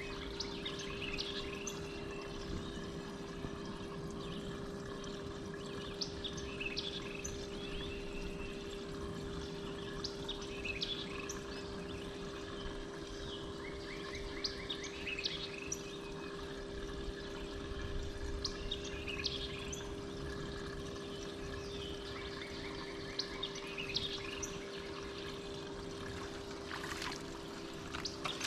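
Birds chirping and calling again and again over a steady low hum and light water sounds.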